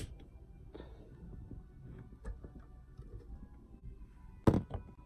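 Handling noise from a phone held in the hand while it is moved about: a sharp click at the very start, low rubbing and small clicks, then a louder knock about four and a half seconds in.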